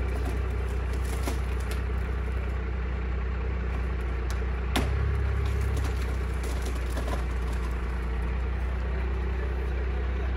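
A vehicle engine idling steadily, with one sharp crack a little before halfway through.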